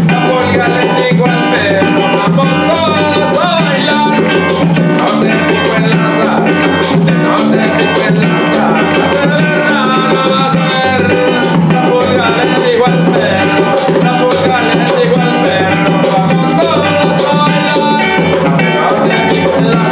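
Live band playing a song, with a man's voice singing over an electric bass line, acoustic guitar strumming and a steady rhythm of hand percussion.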